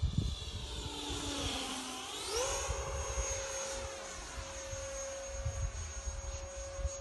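FMS Hawk model jet's electric ducted fan whining in flight, with a sweeping whoosh as it passes close by. About two seconds in, the fan's pitch rises sharply as it throttles up, then holds steady as the jet climbs away.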